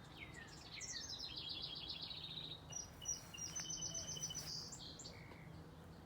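Songbirds singing: a fast trill of repeated notes falling in pitch about a second in, followed by high, thin whistled notes and a short chirp.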